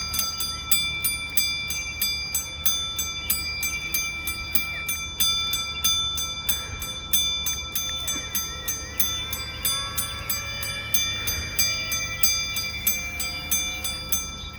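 Railroad-crossing bell dinging steadily at about three strikes a second, with its ringing tones carrying between strikes; in this version the two dings are struck separately rather than together.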